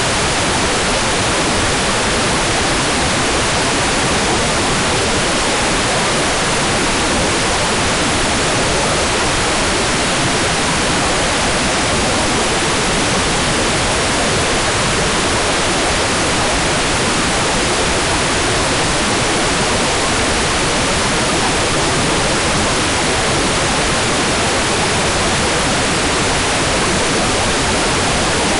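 Hair dryer running steadily: a continuous, even rushing hiss of blown air, used as white noise for baby sleep.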